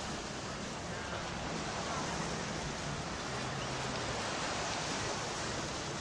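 Steady wash of small waves breaking on the sand, with the indistinct chatter of a beach crowd underneath.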